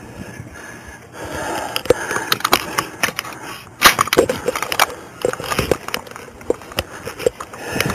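Body-worn camera rubbing and knocking against the wearer's uniform and gear as he moves: a string of scrapes and sharp knocks, the loudest about four seconds in.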